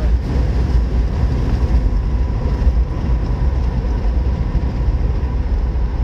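Steady low rumble of road and engine noise inside a Suzuki Grand Vitara's cabin as the SUV slows from about 85 to 68 km/h, with a faint steady high tone above it.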